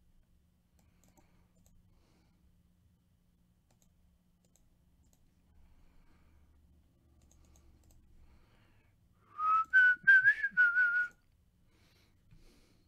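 Near silence, then about nine seconds in a person whistles a short, wavering tune of a few notes lasting about two seconds.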